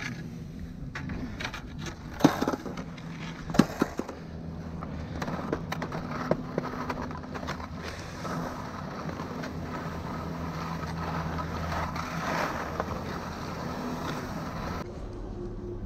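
Skis sliding and scraping over groomed corduroy snow, with small clacks and knocks from skis and poles throughout. Two sharp, loud clacks come about two and three and a half seconds in.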